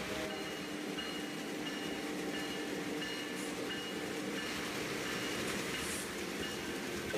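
N-scale model trains running: a steady hum of small locomotive motors with wheel and track noise. A faint high tone pulses about every two-thirds of a second.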